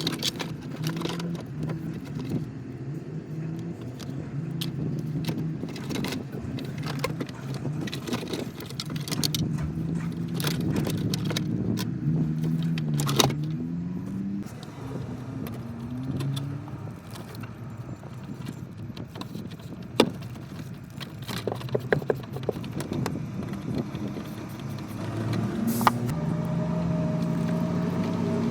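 Scattered clicks and small metallic rattles from hand work on parts, over a low steady engine hum from a vehicle running nearby. The hum wavers up and down in pitch a little after the middle and comes back stronger near the end.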